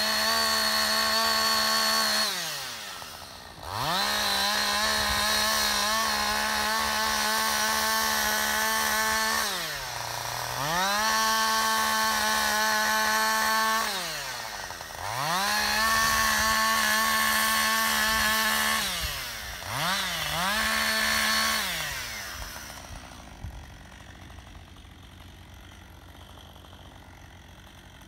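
Two-stroke chainsaw run at full throttle in five long stretches while cutting at the base of a dead tree, easing off and revving back up between them. Near the end it drops back to a quiet idle.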